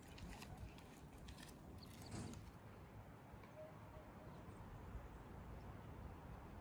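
Near silence: a few faint clicks in the first couple of seconds, then only a low steady background.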